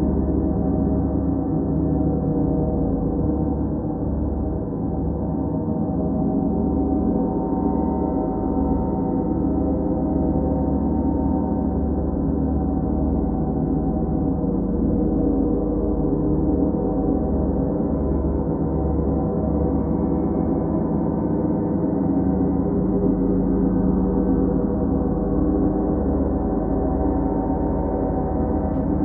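Large suspended planet gongs played continuously, their many overlapping tones blending into one steady, unbroken wash of sound.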